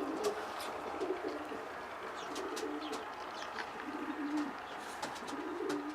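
Domestic racing pigeons cooing repeatedly in low, rolling phrases, with scattered light clicks.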